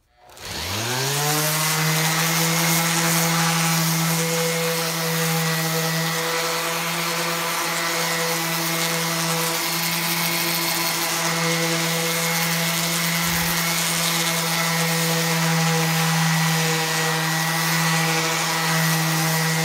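Electric sander starting up, its motor rising quickly in pitch in the first second, then running steadily while sanding the rough sawn edges of a wooden shelf board.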